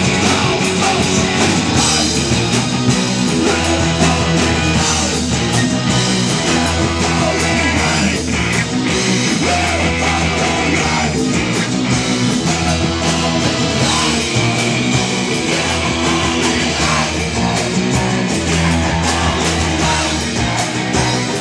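Live amplified rock band: electric and acoustic guitars, bass guitar and drum kit, with several singers in unison.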